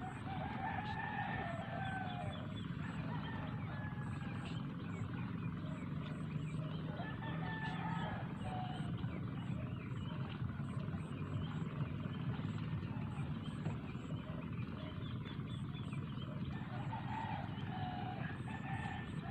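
Roosters crowing several times, each crow about a second long, over a steady low rumble, with short high chirps repeating throughout.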